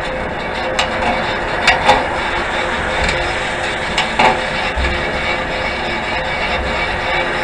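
A rusty mamachari shopping bicycle being ridden, giving off metallic creaks and clicks over a steady rushing noise. There are a few sharp clicks about a second in, two near two seconds, and two more around four seconds in.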